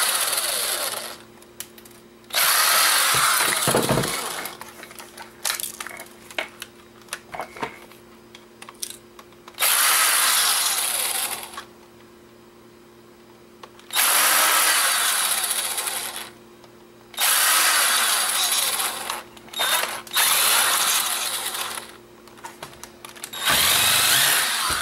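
Cordless electric screwdriver running in several short spells of one to two seconds, backing out the small screws of a plastic camera body. Between the spells come clicks and rattles of screws and plastic being handled.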